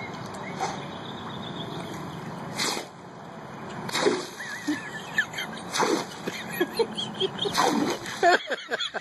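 A Labrador sneezing about four times, a second or two apart. Splashing water starts near the end.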